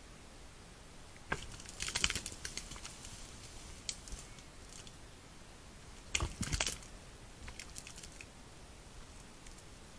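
Wet mud squelching and crackling as a red deer stag shifts its hooves in a mud wallow: two bursts, about a second in and again past six seconds, with scattered small clicks between.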